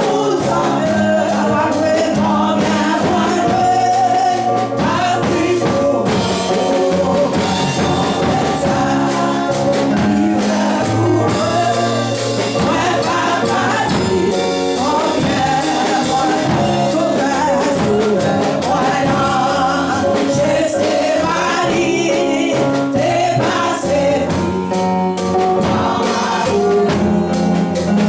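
Congregational gospel music: a choir singing with a live band, steady bass and a driving beat.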